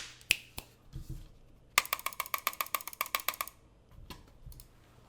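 Logitech G Pro X mechanical keyboard with GX Brown tactile switches being typed on: a few single keystrokes and a couple of dull thuds, then a quick run of key presses at about ten a second for under two seconds, then a few softer presses.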